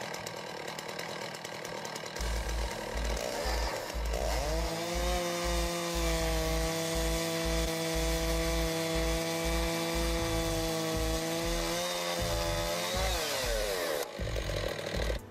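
Chainsaw revving up about four seconds in, held at steady high speed, then dropping back near the end, over background music with a thumping bass beat.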